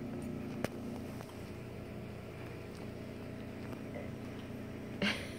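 Two cats play-fighting on a rug: soft scuffling with a single sharp tap a little over half a second in and a short, louder burst of noise near the end.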